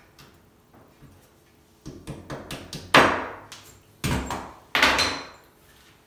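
Hammer knocking while a shower enclosure's wall profile is fitted: a run of light taps, then three hard blows in the second half, each with a short ringing tail.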